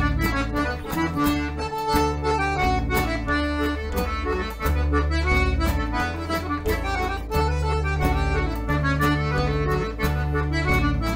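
Irish traditional dance tune, a reel, played on a diatonic button accordion carrying the melody over strummed acoustic guitar and a bass line.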